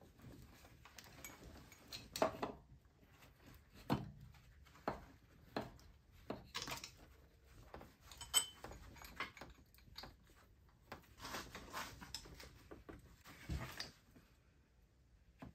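Irregular metallic clinks, knocks and scraping as a replacement automotive AC compressor is worked into its mounting in the engine bay and its bottom bolt is started by hand. A few sharper knocks stand out among softer rubbing and handling noises.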